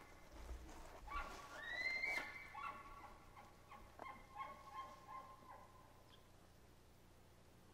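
Bull elk bugling: a note that climbs into a high, held whistle, followed by about three seconds of rapid chuckling grunts.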